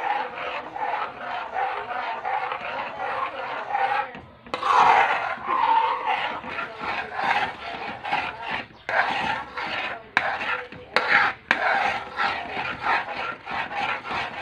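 Metal spoon scraping round the bottom of a metal wok in quick, even strokes, about three a second, with a short break about four seconds in. This is condensed milk being stirred constantly over low heat as it thickens into yema.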